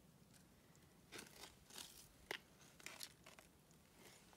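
Faint handling noises: a handful of short, scattered crunches and crackles, with one sharper click a little past two seconds in.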